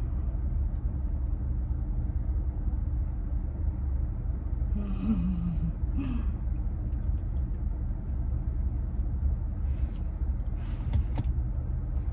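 Steady low rumble throughout, with a short hummed voice sound, falling in pitch, about five seconds in.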